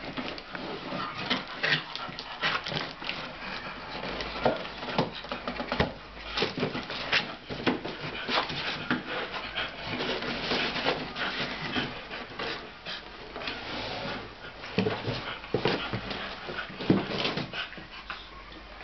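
A wire fox terrier rummaging in and tearing at a cardboard box with its mouth and paws: irregular cardboard rustling, crinkling and tearing, with scrapes and knocks of the box on the floor.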